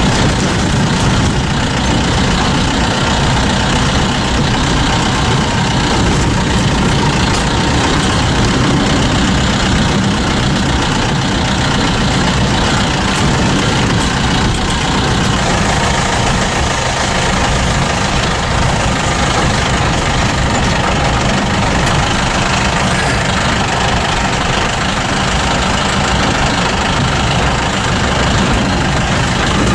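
Steady engine and road noise heard from inside a vehicle's cabin as it drives along a rough, wet dirt track.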